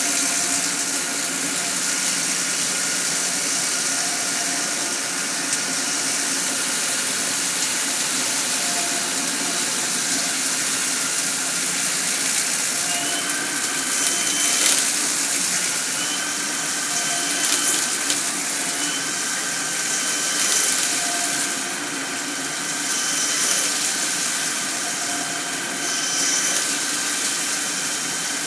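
Mori-Seiki SL-2H CNC lathe turning 6061 aluminium bar, coolant splashing and hissing over a steady machine whine. The whine's pitch steps up and down a few times as the spindle changes speed.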